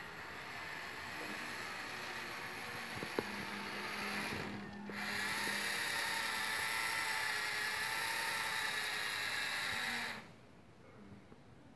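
Small electric motor of a 1:12-scale Dickie Linde H40D model forklift whirring with a high whine. It drops out briefly about four and a half seconds in, runs again louder, and stops suddenly about ten seconds in.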